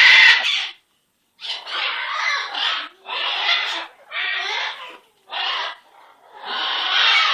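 Pet parrot giving a run of about six harsh, raspy squawks, each under a second or so with short pauses between them, the last one drawn out longer.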